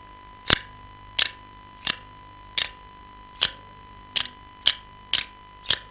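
Three metal spoons clacked together as a foley imitation of pruning shears cutting: a series of about nine short, sharp metallic snips, a little under one a second, a few of them doubled.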